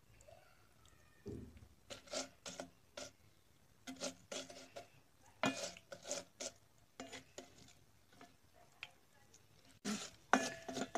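Plastic spoon stirring and scraping broken spaghetti pieces frying in oil in a metal pot, in short, irregular strokes against the pot.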